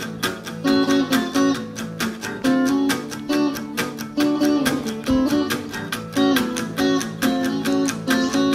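Electric guitar playing blues double stops and short chord fragments high up the neck, over a steady strummed rhythm in A.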